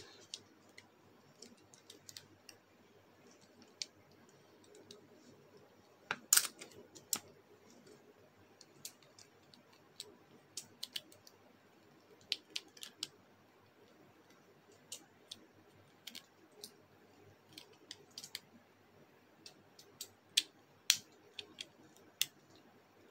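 Faint, irregular plastic clicks and snaps as a Bakugan Geogan figure, Montrapod, is folded shut by hand into its closed form, with a louder pair of snaps about six seconds in.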